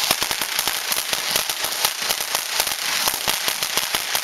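Weco 'Ocean of Lights' fountain firework burning: a steady hiss of spraying sparks with dense, rapid crackling pops.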